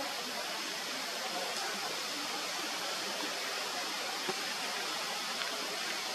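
Steady, even hiss of forest ambience with a faint high steady tone above it, and a single soft tap about four seconds in.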